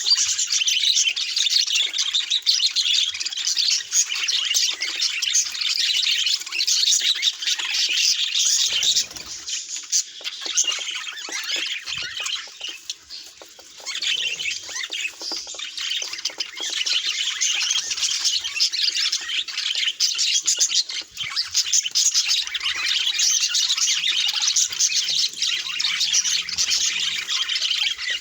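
Budgerigars chattering, warbling and chirping continuously, a dense flock of many overlapping calls that thins out for a moment about twelve seconds in.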